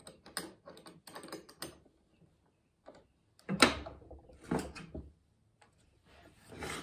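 Metal C-clamp being tightened onto a wooden stop block on a table saw's rip fence, with handling clicks and knocks of metal and wood. A run of light clicks comes first, then a few louder knocks about halfway through.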